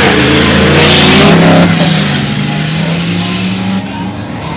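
Turbo-diesel bakkie engines at full throttle launching off the line, the engine note climbing steadily as they accelerate, over a loud hiss. The sound eases off near the end.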